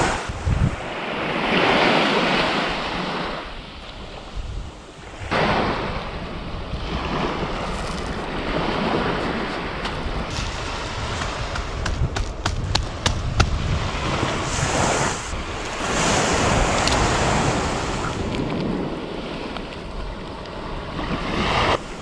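Sea surf breaking and washing up the shore in slow swells, with wind rumbling on the microphone. A quick run of sharp clicks comes about halfway through.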